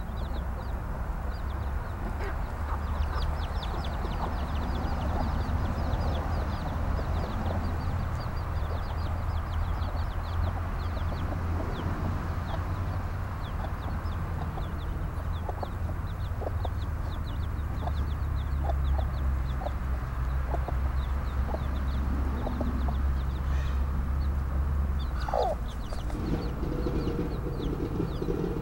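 A barred mother hen clucking low to her brood while the chicks keep up quick, high, repeated peeps, the hen's calls that keep her chicks following her. A steady low rumble sits underneath.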